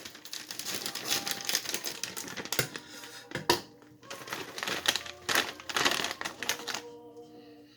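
Potato chip bag crinkling and crackling in a rapid, irregular run of rustles as it is handled and opened, easing off near the end.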